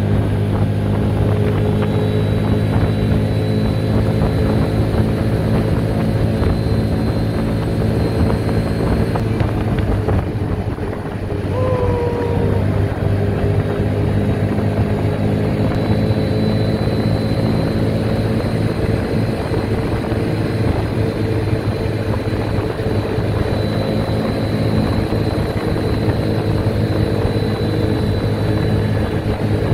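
An ATV's engine running steadily at cruising speed, a constant low drone with a rushing noise over it. The drone dips briefly about eleven seconds in.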